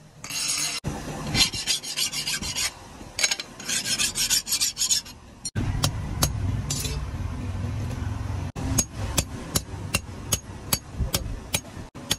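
A steel cleaver blade being filed by hand, a series of scratchy rasping strokes. Partway through this gives way to a low steady hum, and then to a run of sharp regular ticks, about three a second.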